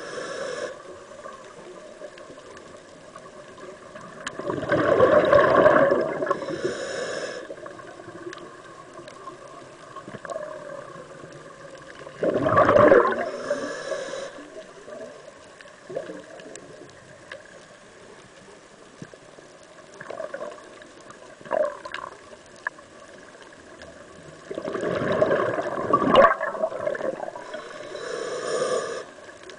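Scuba diver breathing through a regulator underwater: three long rushes of exhaled bubbles, about four, twelve and twenty-five seconds in, each followed by a short hiss, over a steady underwater background.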